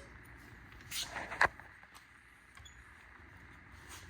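A few light clicks and scrapes, with one sharp click about a second and a half in, from hands working on a dirt bike's front brake pads.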